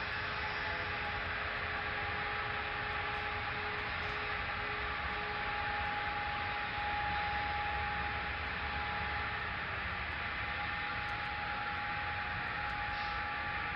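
N scale model freight cars rolling steadily along the track: a constant rolling hiss with a faint steady whine.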